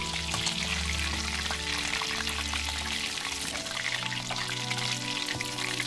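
Batter-coated chicken lollipops deep-frying in hot oil in a frying pan, a steady sizzle full of fine crackles as the fried pieces are lifted out. Soft background music with held notes plays underneath.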